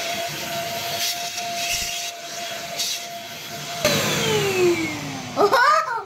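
KENT Storm handheld vacuum cleaner running with its crevice nozzle, sucking dust off a window sill, its motor giving a steady whine. A little under four seconds in it is switched off and the whine falls away as the motor spins down.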